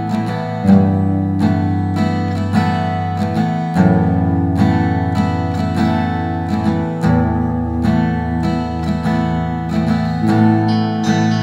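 Background music: an acoustic guitar strumming a steady rhythm, with the chord changing about every three seconds.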